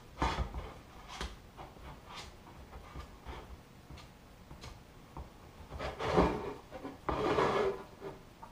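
Plastic card scraping epoxy filler over a metal motorcycle headlamp shell: short strokes about once a second, then two longer, louder scrapes past the middle.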